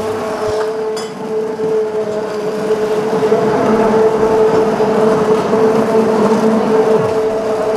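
Electric hand blender running steadily in a stainless steel pot, blending soup, with a steady motor whine.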